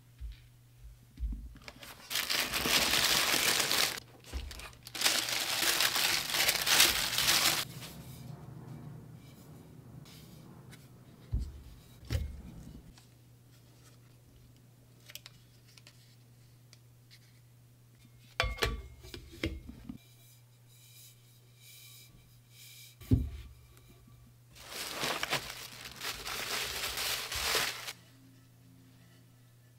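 Product packaging being unwrapped and crinkled by hand in three long rustling spells, with a few sharp knocks and clicks between them as the stainless steel tumblers and their plastic lids are handled. A steady low hum runs underneath.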